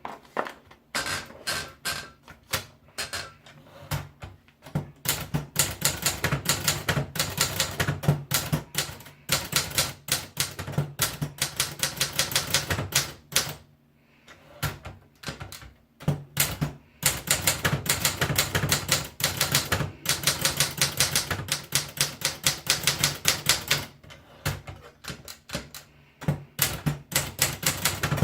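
Triumph Gabriele 25 typewriter being typed on: fast runs of key strikes, with short pauses about halfway through and again near the end.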